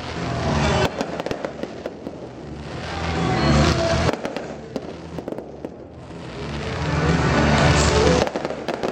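Fireworks display: shells bursting with dense crackling from glittering crackle stars. It comes in waves that swell to loud peaks about three and a half seconds in and again near the end.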